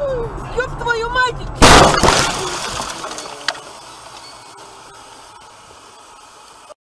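A person yelling inside a car, then about a second and a half in a sudden loud crash as the car collides and its windshield cracks; the crunching and rattling fade over a few seconds to a low hiss.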